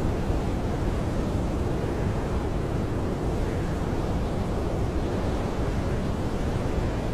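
Blizzard wind blowing steadily, heard from inside a camping tent: a constant low rushing noise with no gusts, breaks or separate events.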